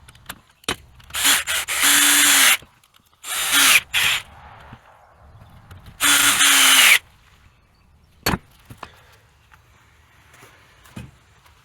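Power drill running in three short bursts, its motor pitch dropping as each one stops, then a single sharp click near the end. The drill is running small nuts onto the bolts that stitch a flat belt together.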